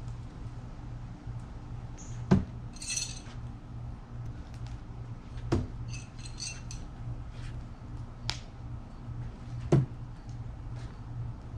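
Thrown knives striking a wooden log target: four sharp hits with a metallic clink, a few seconds apart, over a steady low hum.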